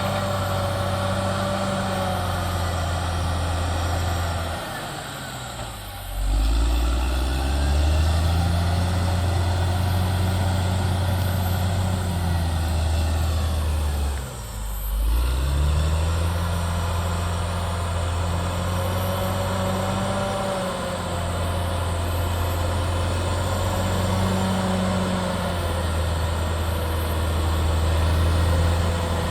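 Caterpillar D6R XL bulldozer's diesel engine running steadily at work, its note dropping and picking back up briefly about five seconds in and again about fifteen seconds in.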